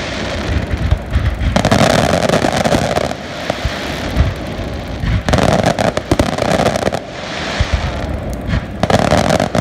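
Fireworks going off: aerial shells bursting amid a dense run of crackling pops, louder in three spells about 2 seconds in, 6 seconds in and near the end.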